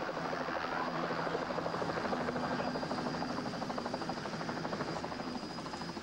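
Helicopter close by, its rotor beating in a rapid even pulse over a steady engine tone and a thin high whine.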